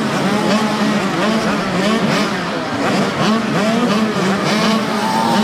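A group of children's mini motocross bikes revving their engines together at the starting gate, their pitches rising and falling over one another.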